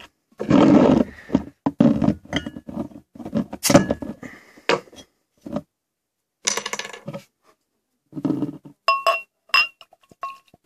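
A glass beer bottle being opened and poured into a drinking glass. There are clicks and rustles of handling, with a sharp snap about a third of the way in, then several short ringing clinks of glass on glass near the end.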